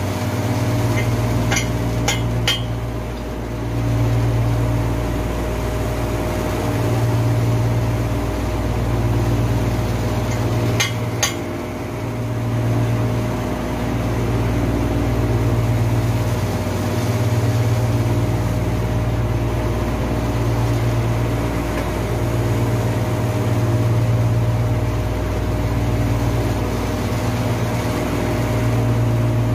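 Steady machinery hum that swells and dips every three seconds or so, with a few light metal clinks near the start and about eleven seconds in.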